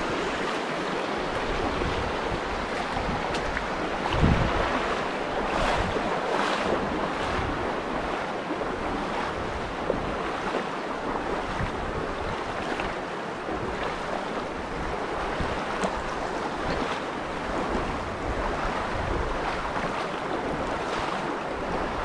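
Shallow mountain stream running fast over stones, a steady hiss of rushing water. Wind buffets the microphone now and then with low thumps, the strongest about four seconds in.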